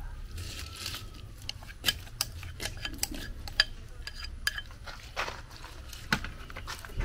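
Cooking utensils clinking and knocking against dishes and pans in an irregular series of sharp clinks, over a low steady rumble.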